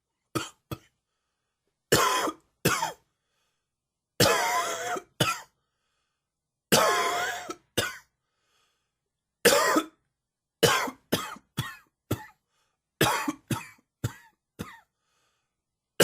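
A man coughing over and over in an allergy-triggered coughing fit: short coughs in quick groups, with two longer coughs about four and seven seconds in.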